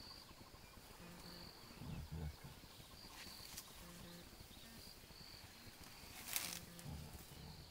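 Faint bush ambience: insects chirping in short high bursts, and deep hooting calls of southern ground hornbills repeating every few seconds. A single sharp snap comes about six seconds in.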